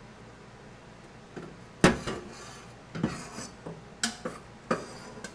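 Sections of 3-inch stainless steel exhaust pipe clanking as they are handled and test-fitted, in four or five sharp metallic knocks with a short ring. The loudest comes a little under two seconds in.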